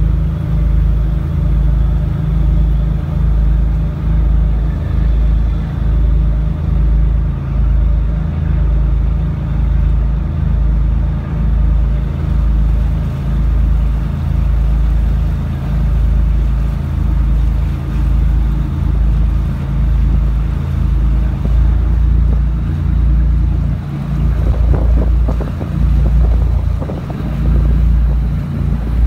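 The small passenger ferry Funauki-maru's engine running steadily underway: a loud low drone that throbs a little faster than once a second. A rougher rushing noise joins near the end.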